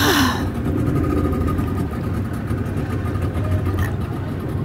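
Boat engine running steadily with a low drone, a short burst of noise right at the start.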